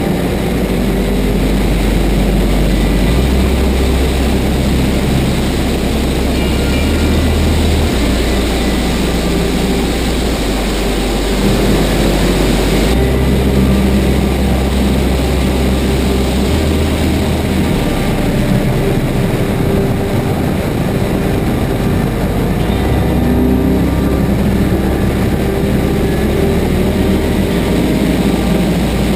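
Onboard sound of a race car's V8 engine under hard acceleration and braking, its note stepping up and down through the gears, over wind rushing past the open cockpit.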